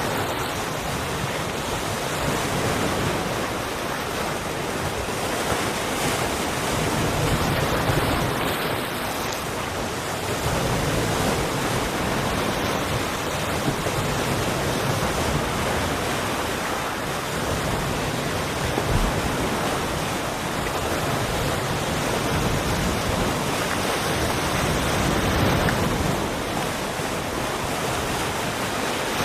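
Sea waves breaking and washing in a steady rush of surf, swelling and easing every few seconds, with some wind buffeting the microphone.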